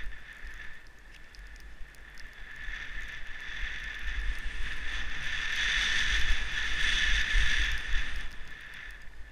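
Skis sliding and hissing over chopped-up powder snow during a downhill run, with wind rumbling on the microphone. The hiss builds to its loudest in the middle of the run and eases off near the end.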